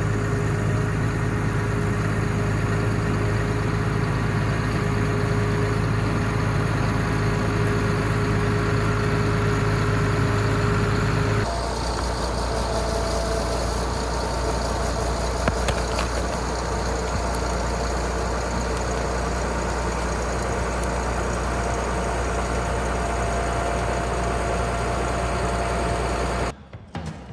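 Bulldozer engine running steadily. About eleven seconds in, the engine note changes abruptly to a lower, deeper pitch.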